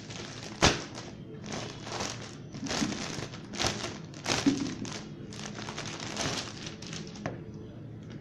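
Clothing being handled close to the microphone: fabric rustling and crinkling in a run of short bursts, with a sharp knock less than a second in. The rustling dies down near the end.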